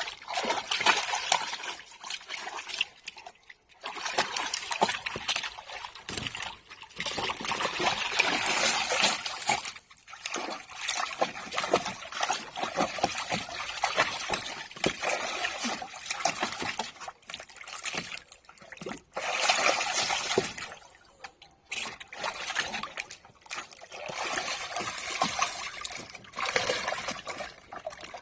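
A Labrador splashing about in the water of a paddling pool, in irregular bursts of sloshing and splashing with brief lulls between them.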